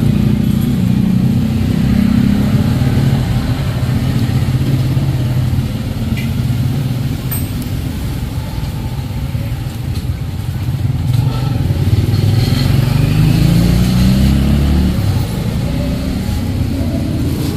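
Motorcycle engine running close by. Its pitch sags in the middle and then climbs as it is revved about twelve seconds in, before dropping back.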